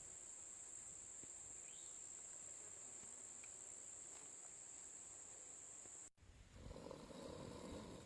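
Faint, steady high-pitched trilling of insects such as crickets, cut off suddenly about six seconds in. A rougher, louder rushing noise follows near the end.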